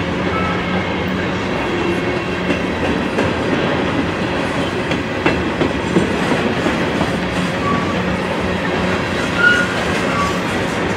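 Freight train boxcars rolling past close by: a steady rumble and clatter of steel wheels on the rails, with brief high wheel squeals now and then.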